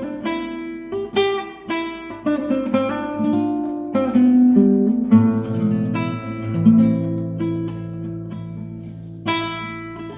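Solo guitar playing a slow song melody, picking single notes over held bass notes, with a chord struck near the end.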